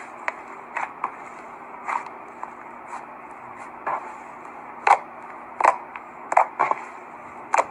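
Slime being squeezed and pressed by hand, giving irregular short pops and clicks over a steady hiss, the loudest pops coming about five seconds in and near the end.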